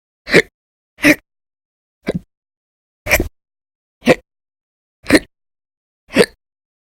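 A woman hiccuping loudly: seven short, sharp hiccups in a row, about one a second, part of a bout of persistent hiccups that lasts many hours a day.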